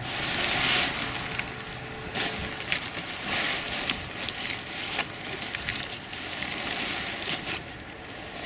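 Tent fabric rustling and crinkling in irregular swells with small crackles as the collapsing tent is handled and folded.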